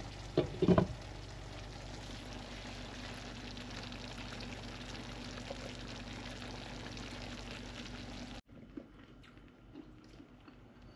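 Steady rush of running water, with a few knocks about a second in. It cuts off abruptly about eight seconds in, leaving a much quieter room.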